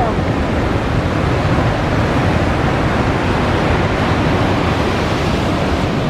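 Big ocean waves breaking in a heavy swell: a steady loud rush of surf.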